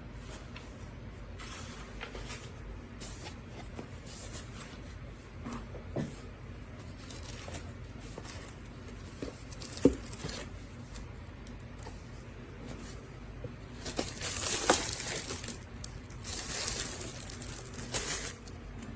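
Crinkling and rustling handling noise with scattered light knocks. There is a sharp click about ten seconds in, and two longer spells of louder rustling near the end.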